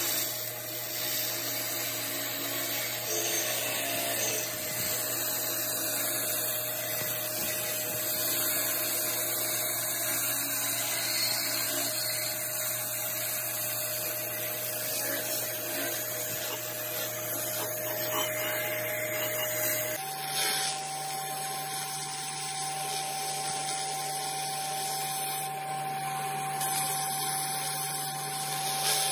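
Laser cleaning machine stripping deposits from an engine cylinder head: a steady high-pitched hiss and buzz over a constant hum. About twenty seconds in, the hum and tone step up slightly in pitch.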